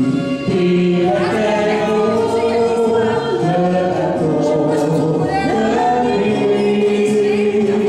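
A man and a woman singing a karaoke duet into microphones over a recorded backing track.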